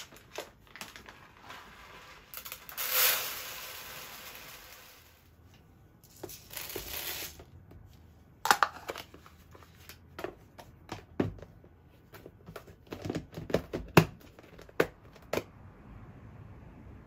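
Dry rice poured from a plastic bag into a plastic storage container: a rushing pour about three seconds in and a shorter one around six seconds, then crinkling of the bag and a run of clicks and knocks as the bag and container are handled.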